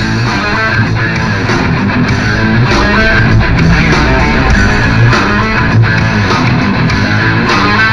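Instrumental passage of a fast punk-rock song: distorted electric guitar strumming over bass and drums, with no singing.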